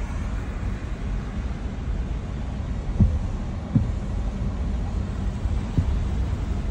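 Low steady rumble of a car driving along a rain-flooded road, heard from inside the cabin, with three dull thumps about three, four and six seconds in.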